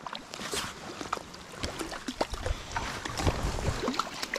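Water splashing and sloshing in short irregular bursts as a hooked trout thrashes at the surface while it is brought in, with scattered knocks and clicks.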